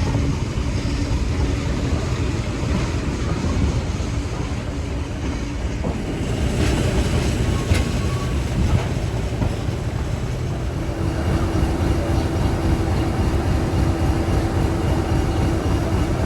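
Class 50 diesel-electric locomotive 50026 and its train on the move: a steady heavy rumble of the English Electric V16 diesel engine and wheels on rail, with a steadier engine tone coming up about eleven seconds in.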